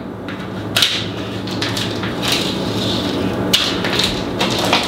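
Kitchen shears cutting into the plastic bag around a whole raw turkey: crinkling plastic with several sharp snips.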